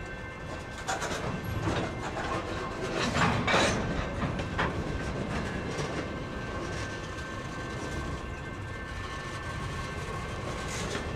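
Freight cars of a passing train rolling by: a steady rumble of steel wheels on rail with repeated clacks and clanks. The loudest cluster of sharp clanks comes a few seconds in, and a faint steady whine sits above the rumble.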